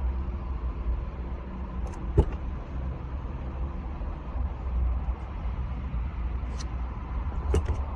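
A 2015 GMC Yukon's 6.2 L V8 idling steadily with a low rumble. The engine has a misfire problem (code P0300). Two sharp clicks come about 2 seconds in and near the end.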